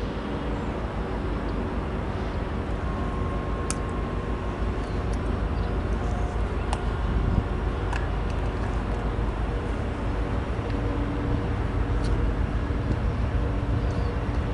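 Diesel freight locomotives approaching from a distance: a low, steady engine rumble that slowly grows louder.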